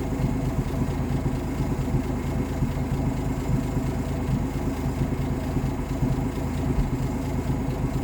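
1958 AMC Rambler Super engine idling steadily while its carburetor idle adjustment screw is being set, the RPM just brought back up after being lowered.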